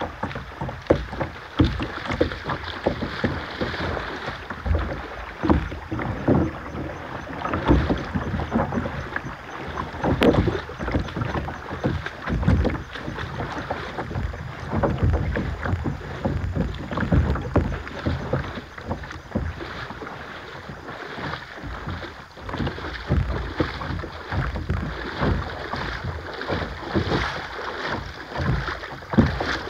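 A kayak being paddled on a river: the paddle dips and splashes every couple of seconds over running water, with low rumbling buffets on the microphone.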